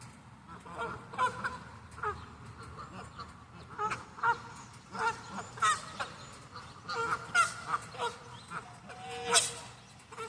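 Wild geese honking: many short honks at irregular intervals, several birds calling over one another.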